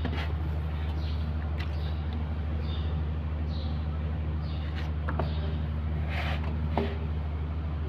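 Steady low mechanical drone from a running engine or machine, with a few light clicks and taps, the sharpest about five and almost seven seconds in.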